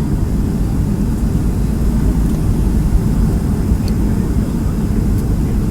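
Boeing 757 in flight heard from inside the passenger cabin on approach: a steady, loud low rumble of engines and airflow.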